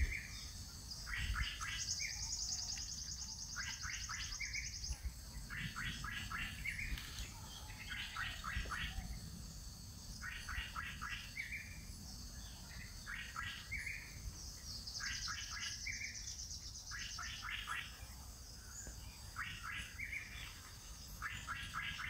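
A songbird repeating a short burst of quick chirping notes about every one to two seconds, with a higher, thin buzzing trill joining in twice for a few seconds.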